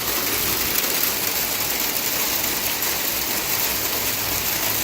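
Hail and rain pelting down in a storm, a dense, steady rush of countless small impacts.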